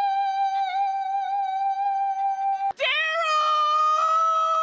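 Two women's husband calls. The first holds one high note steady for about two and a half seconds and stops abruptly. The second starts with a short bend in pitch and then holds a lower note steady.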